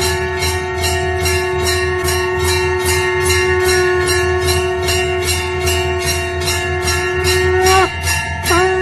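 A conch shell (shankh) blown in one long steady blast that bends and breaks off near the end, then sounds again. Under it a temple bell is rung steadily at about three strokes a second.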